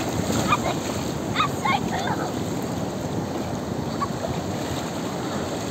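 Shallow surf washing in over a sandy beach, with wind rushing on the microphone.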